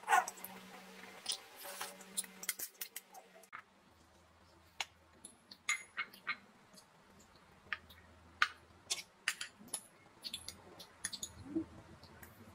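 Metal spoons and forks clinking and tapping against ceramic bowls and a plate while people eat noodles, a scatter of short sharp clicks at irregular intervals.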